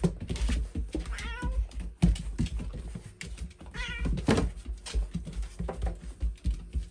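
Maine coon cat giving two short wavering cries, about a second in and again about four seconds in, while it tussles with Labrador puppies, amid many sharp clicks and thumps of paws scrabbling on the floor.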